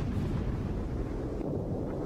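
Steady low rumble of distant artillery bombardment, with a few faint ticks over it.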